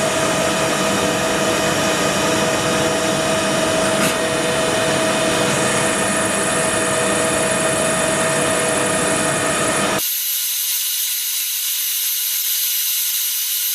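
CNC machine cutting metal: a steady whine with several held tones over a running noise. About ten seconds in it switches abruptly to a different, thinner, high-pitched cutting sound.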